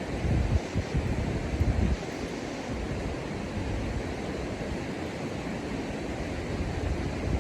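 Steady rushing outdoor noise with wind buffeting the microphone in gusts during the first two seconds.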